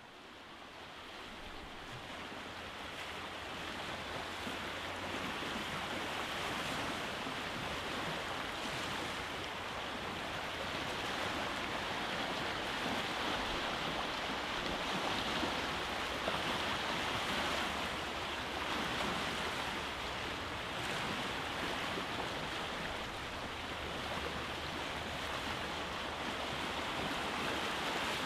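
Sea waves breaking on a rocky shore: a continuous wash of surf that fades in over the first few seconds and swells a little in the middle.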